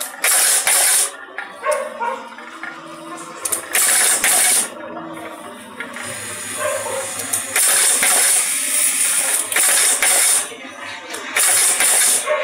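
Semi-automatic covered-button machine cycling: several loud hisses of air, each from about half a second to two seconds long, with mechanical clicks between them over a low steady hum.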